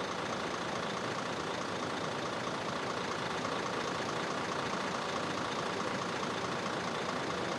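A large vehicle's engine idling steadily.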